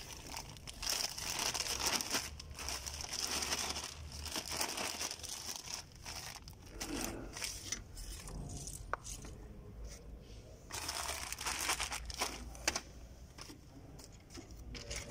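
Plastic packaging crinkling and rustling as it is handled, in two spells: a long one at the start and a shorter one around eleven seconds in, with small clicks.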